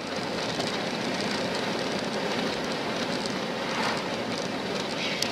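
Steady road and tyre noise heard inside a car cruising at highway speed, with a faint click near the end.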